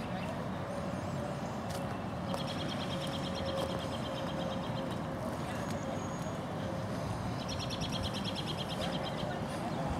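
A bird sings two rapid, high trills of evenly repeated notes, each about two seconds long and several seconds apart, over a steady low rumble and hum.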